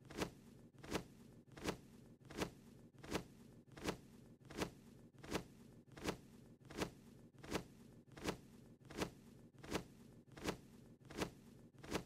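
Cartoon wing-flap sound effect of a small bird: a short swish repeating about every three-quarters of a second over a faint low hum.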